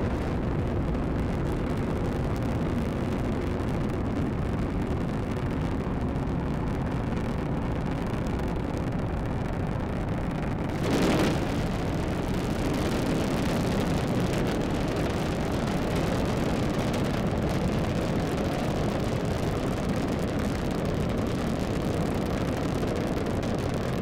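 Falcon 9 first stage's nine Merlin 1D engines during ascent just after liftoff: a steady deep rocket rumble, with a brief louder rush about eleven seconds in.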